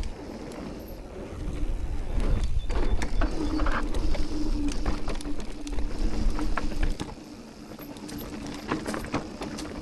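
Amflow e-mountain bike being ridden on a trail: low rumble with frequent clicks and rattles from the bike. From about three and a half seconds in, a steady hum of its DJI drive motor is also heard.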